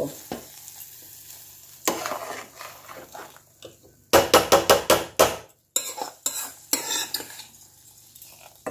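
A metal spatula scrapes ghee-fried gobindobhog rice out of a karai into a pot of milk, with clinks of metal on metal. A fast run of scrapes comes about four seconds in, then scattered scrapes follow.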